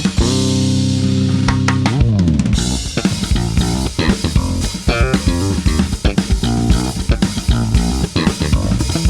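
Bass guitar playing with drum kit accompaniment: a held note rings for about two seconds, slides down in pitch, then gives way to busy, fast rhythmic playing.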